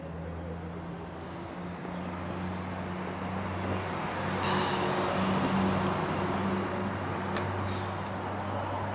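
A vehicle engine hums steadily and low, growing louder in the middle and then easing off.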